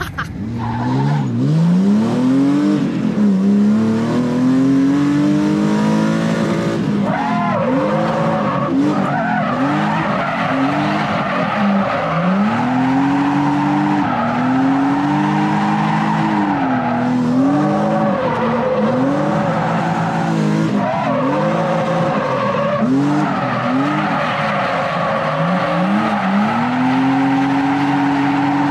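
BMW E36 M3's inline-six engine revving up and dropping back again and again as the car is drifted, with a few longer held pulls, and tyres squealing under it. Heard from inside the car's cabin.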